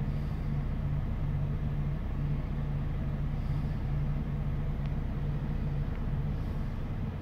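Car engine running at low speed, heard from inside the cabin as a steady low hum with an even drone beneath.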